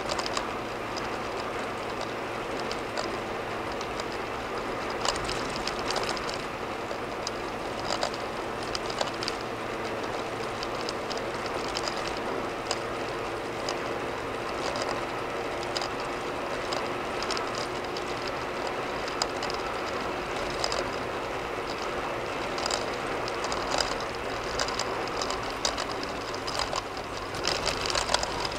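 A car cruising at about 85 km/h on a concrete road, heard from inside the cabin. Steady tyre and road noise over a low engine hum, with brief knocks every second or so that cluster more thickly near the end.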